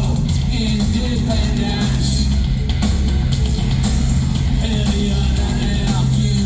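Live industrial music played loud through a venue's sound system: a heavy sustained bass drone under dense electronic percussion, with some vocals.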